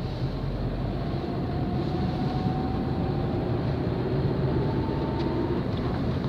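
Car driving on a highway: steady engine and road rumble heard from inside the moving car, with a faint whine rising slowly in pitch over a few seconds.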